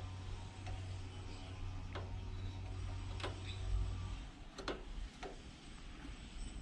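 Light metallic clicks, roughly one every second and a bit, from the throttle linkage of a Porsche flat-six's individual throttle bodies being worked by hand, the engine not running. A low hum underneath stops about four seconds in.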